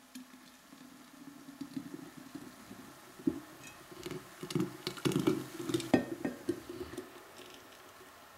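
Thick blended pineapple liquid poured into a glass pitcher, splashing irregularly. The pour is heaviest in the middle and thins to a trickle near the end.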